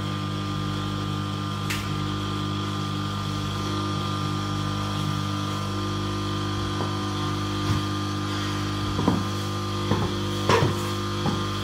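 Steady low hum with several fixed tones throughout. From about eight seconds in, several sharp clacks of platform stiletto heels stepping on a tiled floor.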